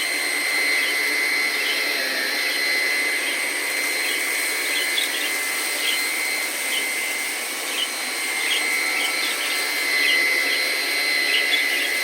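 Hoover ONEPWR cordless stick vacuum running steadily with a high motor whine, sucking up bird seed from the floor.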